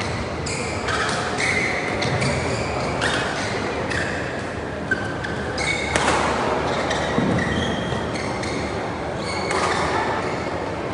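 Court shoes squeaking on badminton court mats in many short, high chirps, with a couple of sharp smacks about five and six seconds in. Everything echoes in a large hall.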